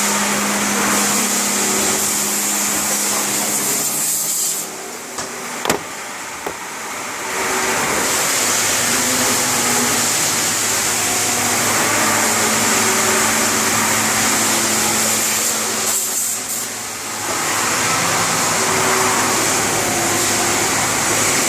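A CNC machine running: a steady hiss with several motor tones that change pitch in steps as it moves. The hiss drops away briefly twice, with a sharp click during the first drop.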